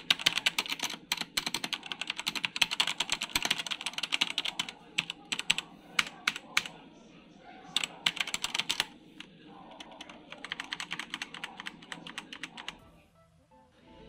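Fast typing on a Leaven K880 mechanical keyboard with brown switches: a dense run of key clicks that breaks into shorter bursts halfway through and stops about a second before the end.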